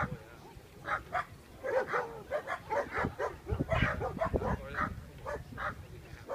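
Dogs barking and yipping in quick, irregular short barks, several a second.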